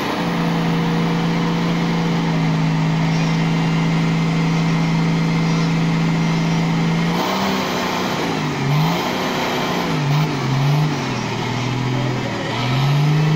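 Nissan Patrol 3.3 turbodiesel engine held at steady high revs for about seven seconds, then revs dropping and climbing again several times, settling back at high revs near the end.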